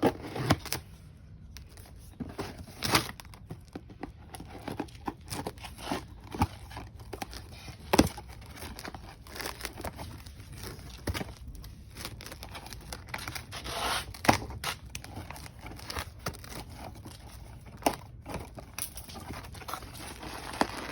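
A parcel being opened by hand: packaging tearing and crinkling, with irregular sharp clicks and knocks as the contents are handled.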